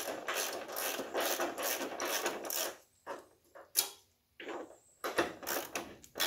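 Ratchet wrench clicking in repeated back-and-forth strokes as a bolt is loosened. The clicking breaks off about three seconds in, leaving a few separate clicks, then picks up again near the end.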